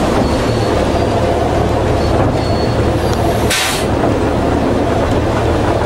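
Narrow-gauge County Donegal Railways diesel railcar under way, heard from inside: a steady low engine drone and running noise from the wheels on the rails, with a brief hiss about three and a half seconds in.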